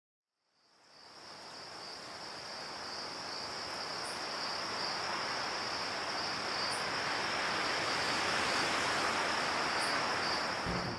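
Night ambience of crickets chirping in a steady high-pitched trill over a soft even hiss, fading in over the first two seconds.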